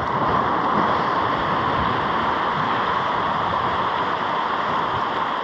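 Steady rushing wash of sea surf against coastal rocks, a continuous even hiss with no breaks.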